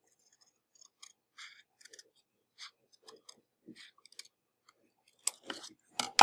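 Paper skimmer glider parts being handled: scattered soft rustles and clicks of paper, getting louder near the end.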